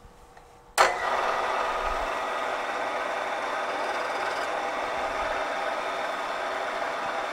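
Milling machine's spindle motor switched on about a second in, with a sharp start, then running steadily.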